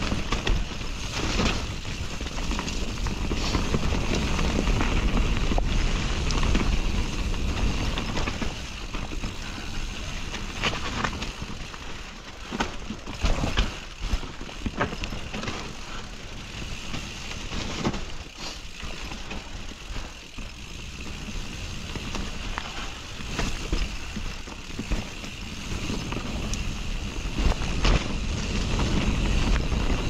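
Nukeproof Mega full-suspension mountain bike descending a dirt forest trail: tyres rolling over the dirt with a low rumble of wind on the microphone, and frequent sharp clicks and knocks from the bike rattling over roots and bumps.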